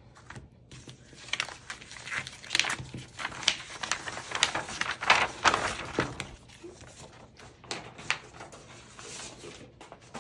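Irregular rustling and crinkling of plastic packaging and card sleeves being handled, loudest around the middle and thinning out near the end.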